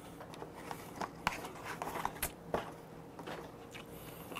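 Fried chicken being picked out of a paper takeout box and bitten into: a few faint, scattered crunches and clicks.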